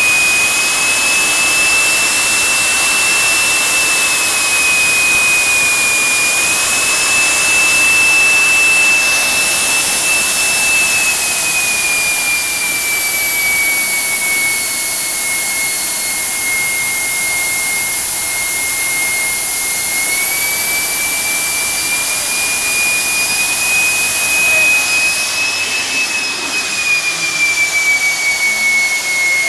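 Jetjoe 1400 model jet turbine engine running at about 150,000 rpm on its test stand: a steady, loud high-pitched whine over a rushing hiss. The pitch eases down a little partway through, climbs back, and dips again near the end.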